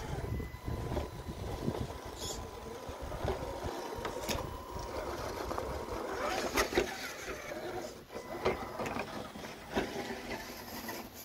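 Redcat Ascent RC rock crawler climbing over a rock: a steady whine from its electric motor and gears, with the tires scrabbling and a few sharp knocks of wheels and chassis on stone.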